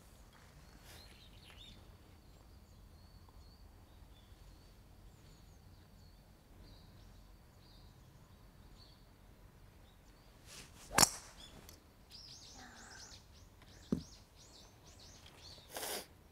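A golf club strikes a ball with one sharp crack about eleven seconds in, over faint outdoor background. A bird chirps in a quick run of short high notes after it, and a softer tap and a brief rush of noise follow near the end.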